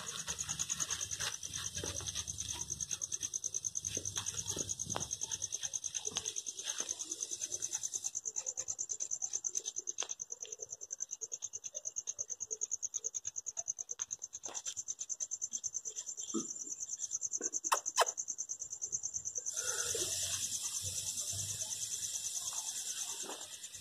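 Crickets trilling steadily, a fast, high-pitched pulsing chirp, with scattered soft rustles and a couple of sharp clicks about three quarters of the way through.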